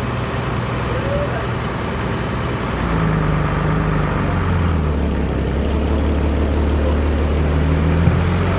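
Sawmill machinery running steadily with a low engine-like drone that changes pitch and grows a little louder about three seconds in.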